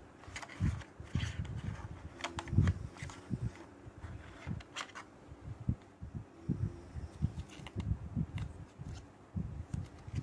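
Handling noise from unpacking a phone box: irregular soft bumps, with a few sharp clicks and scrapes of card and plastic, as a paper card insert is lifted out of the box tray and handled.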